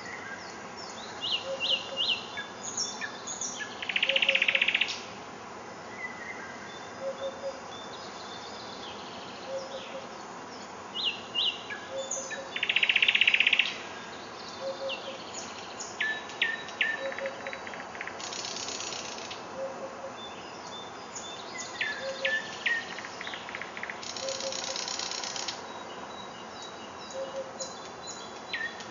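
Forest birdsong: several songbirds singing at once with short high chirps and trills, and two louder rasping bursts about four and thirteen seconds in. A low two-note call repeats steadily every couple of seconds in the background.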